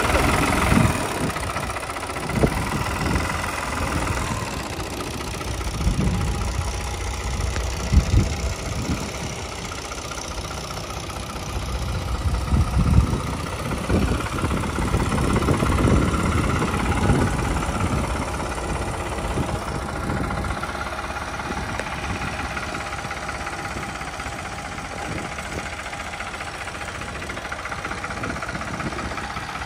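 New Holland tractor's diesel engine running while it works a hydraulic front loader, raising the bucket high. The sound swells and eases, with a few sharp knocks in the first half.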